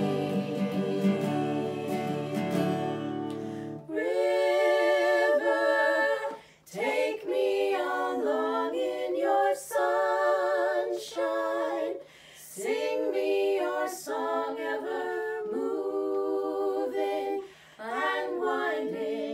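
An acoustic guitar strums chords for about the first four seconds, then stops, and a small group of women sing together, holding long notes in phrases with short breaks between them.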